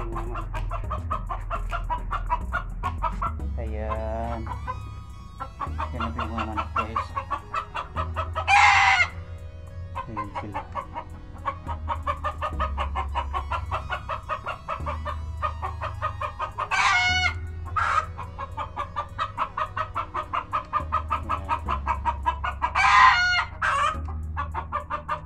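Chickens clucking continuously in a coop, with a rooster crowing three times, short loud calls spaced several seconds apart.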